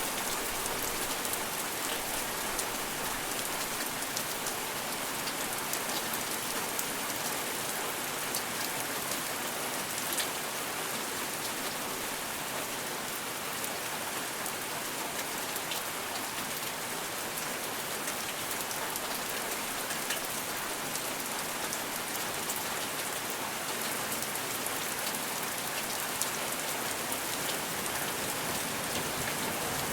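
Steady rain falling on a surface: an even hiss with scattered drop ticks.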